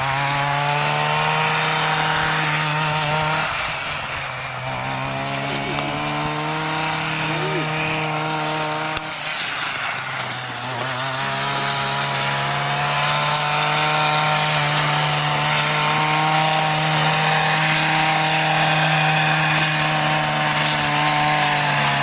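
Two-stroke petrol brush cutter running at high revs while cutting weeds. The engine note sags twice, about four and ten seconds in, then climbs back to full speed.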